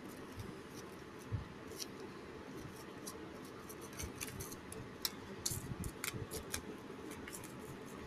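Quiet room tone with faint, scattered small clicks at irregular intervals.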